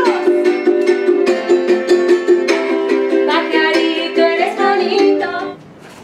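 A ukulele strummed in quick, even chords, about four to five strums a second. The strumming stops about five and a half seconds in.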